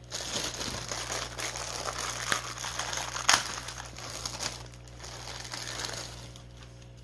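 Clear plastic bag crinkling as a salad chopper is handled and unwrapped from it. The crinkling is busiest over the first four seconds, with one sharp crackle about three seconds in, then tapers off.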